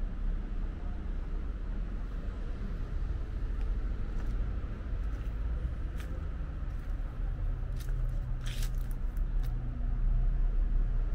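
Steady low outdoor rumble, with a few faint clicks and one brief crunch about three-quarters of the way in.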